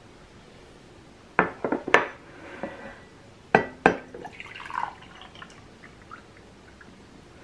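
A glass mug set down on a table with several sharp clinks and knocks, then water poured from a bottle into the glass mug, a splashing trickle lasting about two seconds before it fades.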